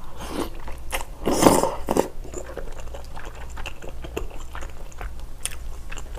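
Close-miked eating sounds: a loud slurp of spicy glass noodles about a second and a half in, then wet chewing with many small mouth clicks.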